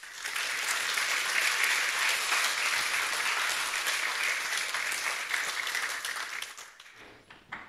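Audience applauding. The applause starts at once, holds steady, and dies away near the end.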